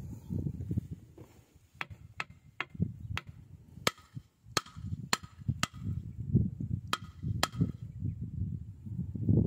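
A fossilised clam shell turned to stone knocked against an excavator's steel track frame: about ten sharp clacks with a short ring, a couple a second, starting about two seconds in. A low rumble runs underneath.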